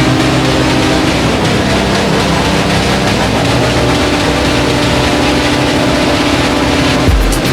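Electronic music in a beatless passage: sustained synth chords that change a couple of times, with the kick drum coming back in near the end.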